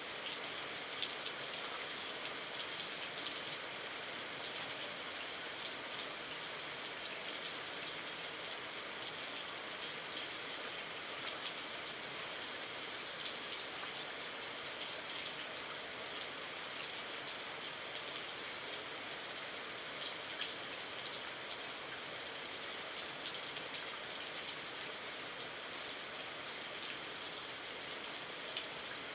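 Steady rain: a dense, even hiss of falling drops with fine pattering ticks throughout, and one sharper tick just after the start.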